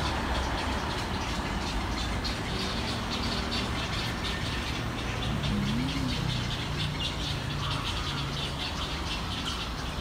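A colony of birds in the trees calling with many short, scratchy squawks over a steady low rumble of road traffic.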